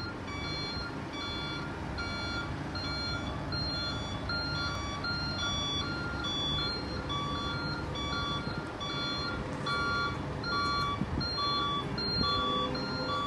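Heavy machinery warning beeper sounding steadily, about one beep every 0.8 seconds, over the low running of a heavy vehicle engine.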